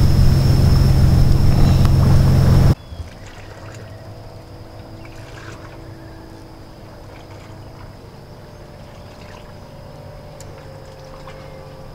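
A boat engine running close by with a steady low hum, cutting off abruptly about three seconds in to a much quieter, steady low hum.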